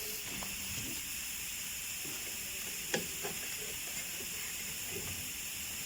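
Steady hiss with one sharp knock about three seconds in and a few fainter taps, from work to knock a rear brake drum loose from its hub.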